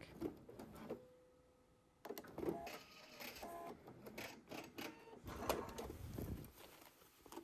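Sewing machine stitching denim slowly, in short stop-and-start runs with mechanical clicking and whirring. It starts about two seconds in, after a brief quiet spell.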